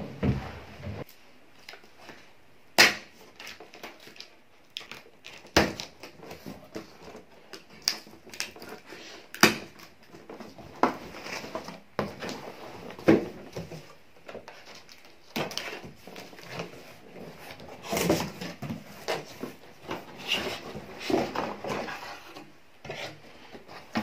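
Vacuum cleaner parts and packaging being handled while unboxing: irregular cardboard and plastic rustling with scattered sharp knocks and clatters.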